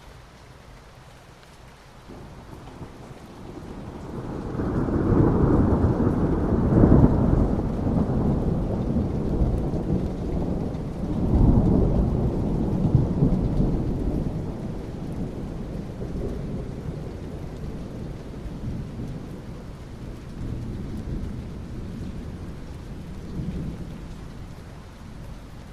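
Rolling thunder over steady rain on asphalt: a deep rumble builds about two seconds in, swells twice and then slowly dies away.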